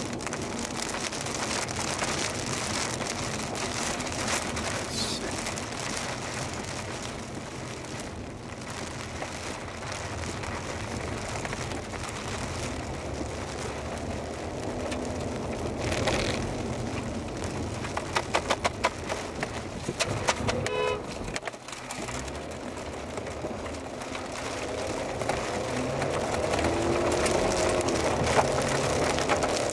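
Steady rushing noise of a vehicle driving through storm wind and rain, with a quick run of clicks and a brief beeping tone about two-thirds in and wavering tones near the end.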